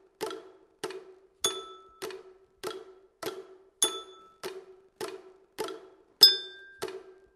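Even, clock-like ticking at a little under two ticks a second, each tick with a short low ring. Every fourth tick is marked by a bright, glassy chime, three times, the loudest about six seconds in.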